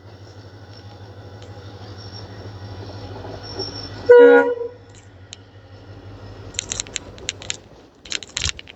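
WDP4D diesel-electric locomotive's engine humming, growing louder as it approaches, then a short, loud horn blast about four seconds in. Several sharp knocks follow near the end.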